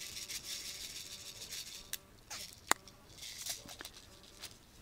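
Airsoft Mossberg 590 spring pump shotgun handled with rustling and light clicks, and fired once with a single sharp snap about two and a half seconds in.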